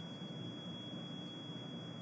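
Steady faint background hiss with a thin, high, steady whine running through it; no distinct sound events.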